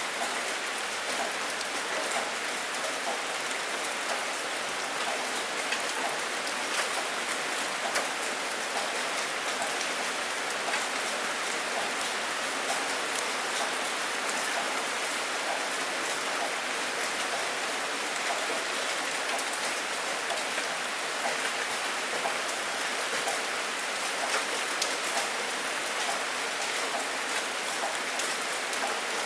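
Steady rainfall: an even hiss of rain with many individual drops pattering on a surface.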